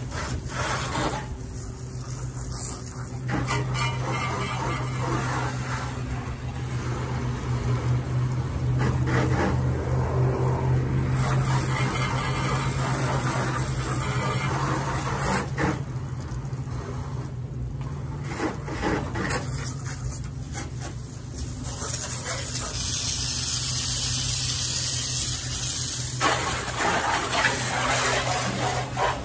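Water spraying against a pickup truck's body during a wash: a continuous hiss that swells and fades as the spray moves, over a steady low hum.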